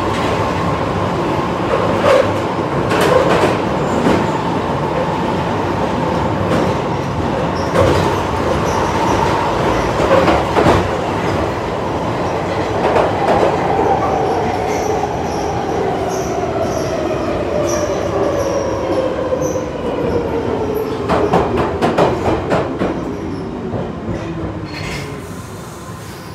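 Piccadilly line 1973 Stock tube train running, heard from inside the carriage: a steady rumble and wheel noise with clicks over the rail joints. From about halfway the motor whine falls steadily in pitch and the noise dies down near the end as the train slows.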